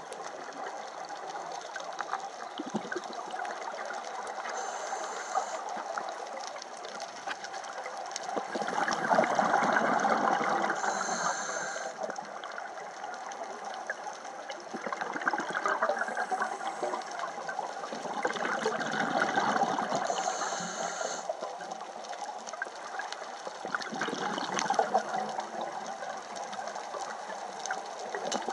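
Scuba diver breathing through a regulator, recorded underwater: a steady hiss with long rushes of exhaled bubbles every few seconds.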